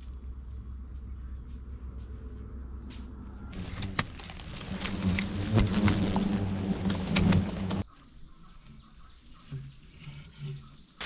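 Hornets buzzing around their nest, loud and close, from about three and a half seconds in to about eight seconds in. Before and after, a steady high-pitched insect chorus with a faint low hum.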